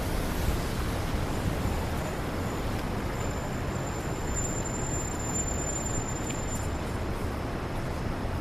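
Steady street noise of city traffic in the rain. A thin, high-pitched whine shows for a few seconds in the middle.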